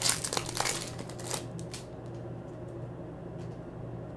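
Foil wrapper of a trading-card pack crinkling as the cards are slid out of it, a flurry of crackles over the first couple of seconds, then only a few faint ticks of card handling.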